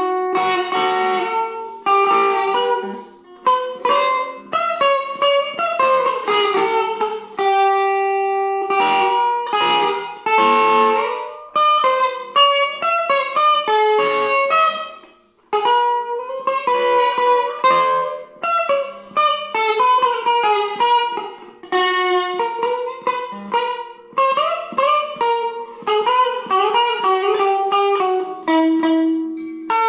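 Stratocaster-style electric guitar played with a clean tone: a melody of picked single notes and chords ringing out, with a brief pause about halfway through.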